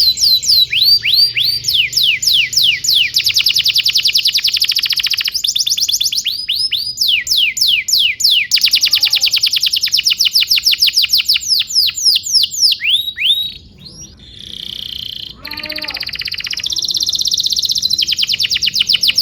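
Domestic canary singing a long song of fast trills, each made of rapidly repeated downward-sweeping whistled notes, the speed changing from phrase to phrase. About 14 seconds in, the trills give way briefly to a quieter, harsher note before starting again.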